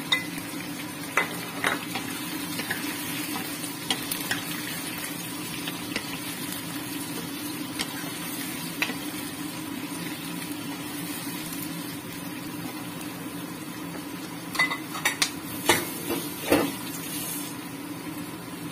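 Chicken, potato and carrot pieces frying in hot oil in a nonstick wok: a steady sizzle, with a wooden spatula stirring and knocking against the pan, a few knocks near the start and a cluster of them near the end.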